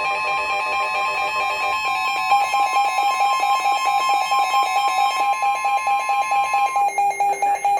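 NOAA Weather Radio 1050 Hz warning alarm tone, a steady single tone, marking the start of a severe thunderstorm warning. Over it, a weather radio receiver's alert sounds in rapid pulsing beeps that grow louder about two seconds in. The steady tone cuts off about seven seconds in while the beeping goes on.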